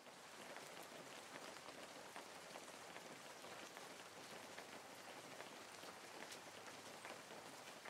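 Near silence: a faint, steady hiss with scattered light crackles.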